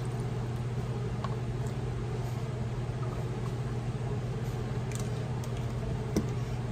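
Steady low mechanical hum of background noise, with a few faint light clicks.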